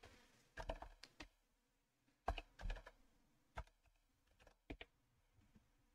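Faint keystrokes on a computer keyboard, typing in a few quick bursts of clicks with short pauses between.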